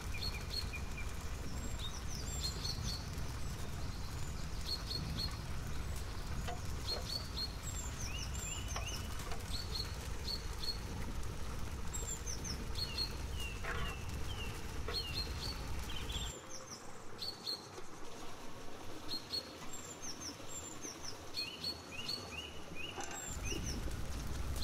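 Small birds chirping, many short high chirps repeated throughout, over a low background rumble that drops away about two-thirds of the way through and returns just before the end.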